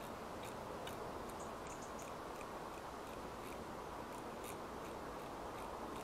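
Quiet, steady outdoor background hiss with scattered faint, irregular light ticks and clicks.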